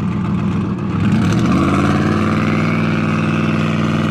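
Twin-turbo 2023 Ford F-150's engine heard from inside the cab, picking up revs about a second in and then holding a steady, higher engine note as the truck accelerates.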